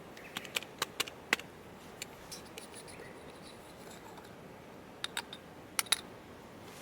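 A series of sharp clicks and light taps from small hard objects being handled: several in the first second and a half, then a few more about five seconds in.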